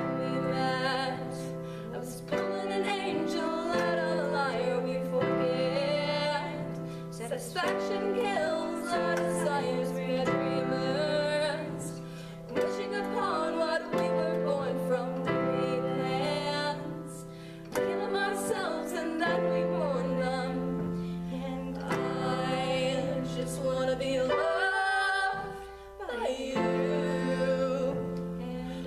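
A woman singing a slow, held melody with vibrato over sustained chords on a digital piano.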